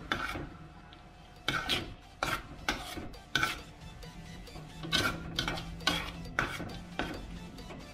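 Metal spoon stirring thick, cheesy noodles in an aluminium pan, scraping and knocking against the pan's sides and bottom in about a dozen irregular strokes.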